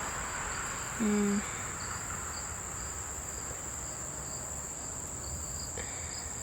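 Crickets trilling steadily in a high continuous drone, with a fainter chirp repeating about twice a second.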